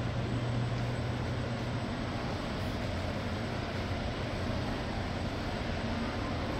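Steady low hum and even rushing noise of a large exhibit hall's ventilation, with no separate events.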